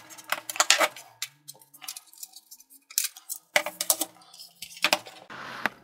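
Plastic case of an ASUS Chromebox CN62 clicking and snapping as its bottom plate is pried loose with a metal spudger and the box is handled, in several quick clusters of sharp clicks.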